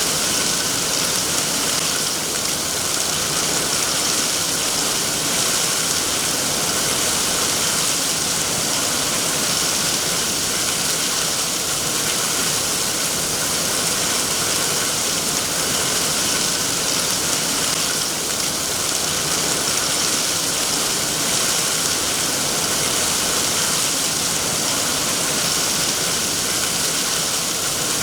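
Steady rain falling, an even hiss that holds level throughout with no thunder or single drops standing out.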